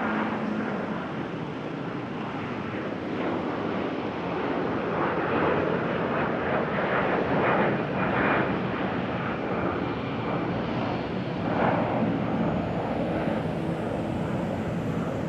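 Airbus A330 jet airliner's engines running, a steady dense rush of jet noise that swells a little a few times.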